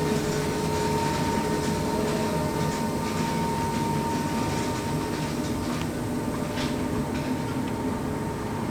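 Electric multiple-unit train departing the station: a steady high whine over a low rumble, easing slightly in loudness.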